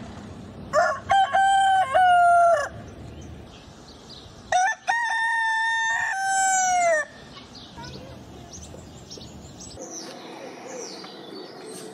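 A rooster crowing twice, each crow a long held call that drops in pitch at the end, about two seconds apart.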